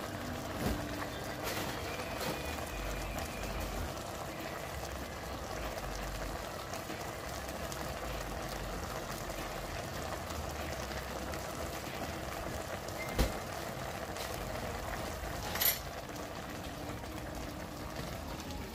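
A pot of collard greens in broth simmering on a gas stove, a steady bubbling. A single thump about two-thirds of the way through, and a sharp clink a couple of seconds later.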